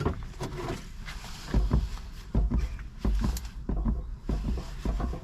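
Irregular light knocks and clicks from hands handling objects, with low rumbling thumps of handling noise in between.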